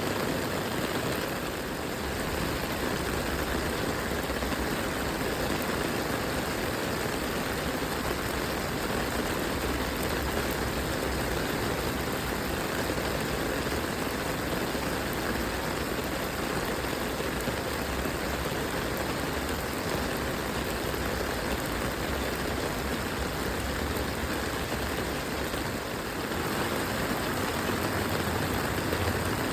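Steady rain, a continuous even hiss, with a low rumble underneath that swells and fades.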